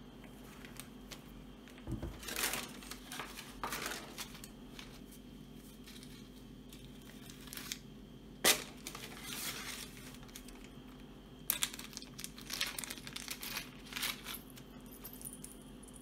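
Plastic wrapping and tissue paper crinkling in several handled bursts, with one sharp knock about halfway through.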